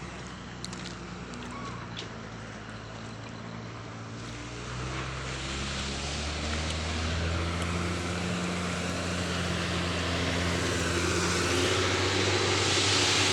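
A large engine running with a steady drone that grows louder from about four seconds in, its hiss strongest near the end, as a heavy vehicle or machine nears. A few sharp clicks near the start.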